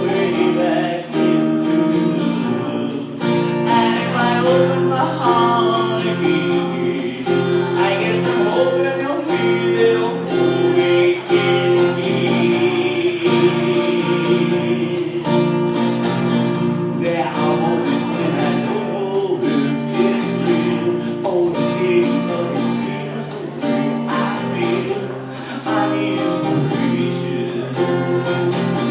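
A singer performing a song over strummed acoustic guitar.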